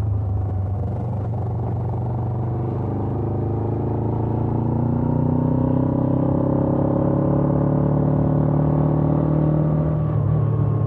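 Suzuki GS500F's air-cooled parallel-twin engine, running through its stock exhaust. The pitch eases slightly at first, then rises steadily as the bike pulls through the revs, with a brief break about ten seconds in, likely a gear change.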